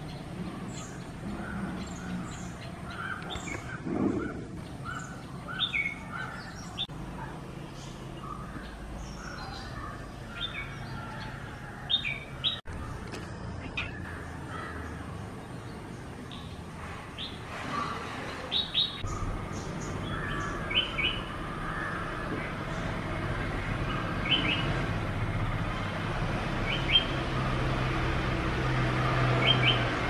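Birds chirping with many short, high calls scattered throughout, over a low steady rumble that grows louder in the second half.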